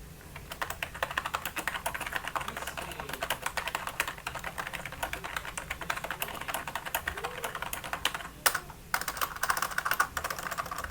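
Typing test on a VERTUX Amber Pro membrane keyboard: a fast, continuous run of key presses, with a short pause and one louder key strike about eight and a half seconds in.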